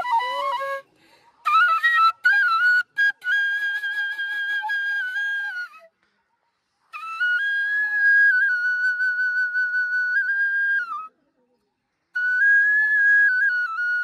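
A flute playing a slow melody of long held notes that step up and down in pitch, in phrases broken by short pauses.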